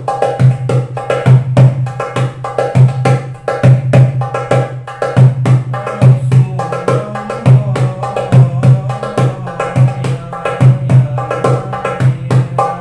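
Small hadroh hand drum played with the hands in a quick, steady rhythm: deep, resonant strokes mixed with sharper ringing slaps, several a second.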